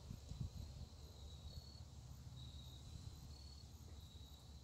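Faint crickets chirping outdoors at night: short chirps repeating at an even pace, a little more than one a second, over a low steady hum.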